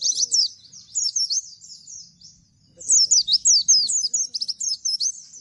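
A Bustomi-type white-eye (pleci) sings in rapid 'nembak' runs of high, sharp, downward-sliding notes. The runs come in bursts, with a brief gap about two and a half seconds in, followed by a loud run.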